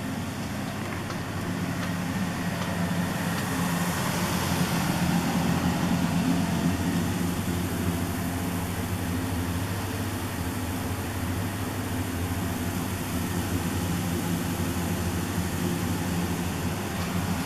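Steady low hum with a hiss over it, swelling slightly a few seconds in: the ambient machine and ventilation hum inside a stationary exhibit railcar.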